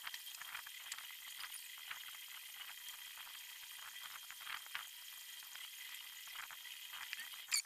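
Paper being cut with scissors and handled: faint scattered snips and crackly rustles over a steady hiss.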